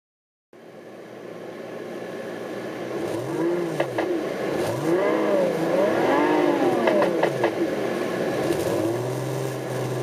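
SoundRacer V12 engine-sound simulator playing its recorded Ferrari 512 BB LM twelve-cylinder engine through the car's stereo speakers, following the revs of a stationary Daihatsu Move L600S turbo. It starts about half a second in, rises and falls through four quick rev blips, then settles to a steadier, lower note near the end, with a few sharp clicks in between.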